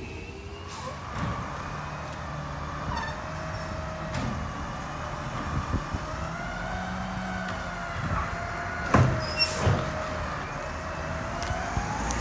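Garbage truck running, with a whine that slowly rises and falls in pitch, and a few sharp knocks about nine seconds in.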